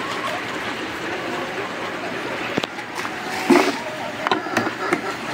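Water from a submersible pump's hose pouring steadily into a 50-litre plastic jug as it fills, with a few light clicks and knocks.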